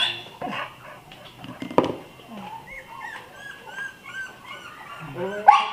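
American Bully puppies whimpering and yipping in many short, high cries. There is a sharp knock a little under two seconds in, and a louder yelp near the end.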